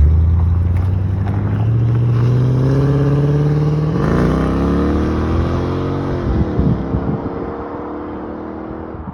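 A car engine accelerating, its note climbing steadily for about four seconds, then the car passing by with the pitch dropping sharply and the sound fading away.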